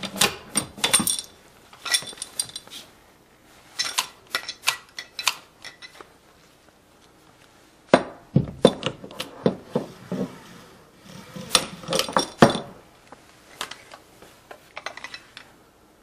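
Seat belt retractor being worked by hand in a level test, making several short bursts of sharp metallic clicking and rattling with pauses of a second or two between them.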